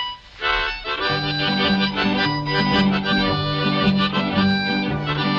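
Instrumental introduction to an old-time country song: a harmonica plays the melody over a steady bass line that alternates between two notes.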